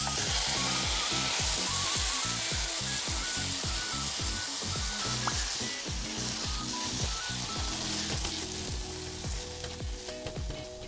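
Roasted tomato, red pepper and garlic, with their juices, hitting a hot pot and sizzling loudly. The sizzle starts suddenly and slowly dies down as they are stir-fried and mashed with a spatula.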